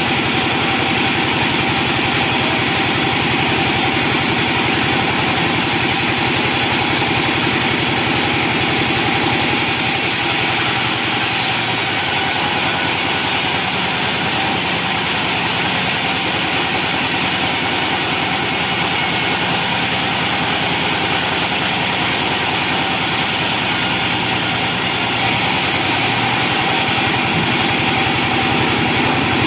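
Benso band sawmill running with a loud, steady mechanical drone as a teak log is worked. The tone shifts slightly about ten seconds in and again near the end.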